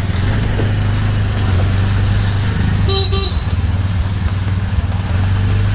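Motor vehicle running with a steady low drone, and a vehicle horn tooting twice in quick succession about three seconds in.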